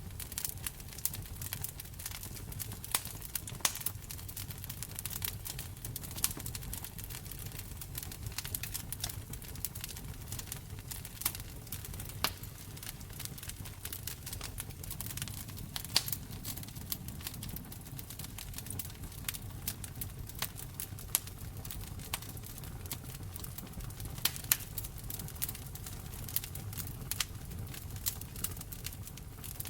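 Wood fire in a fireplace crackling, with irregular sharp pops and snaps over a low steady rumble of the flames.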